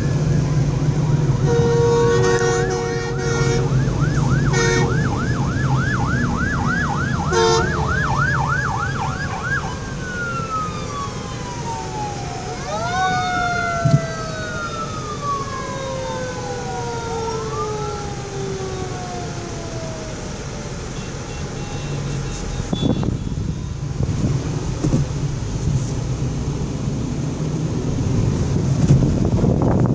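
Emergency sirens on arriving fire-rescue vehicles: a fast yelp siren with horn blasts over it, then slower rising and falling wails from more than one siren overlapping. They die away about two-thirds of the way through, leaving car road and wind noise.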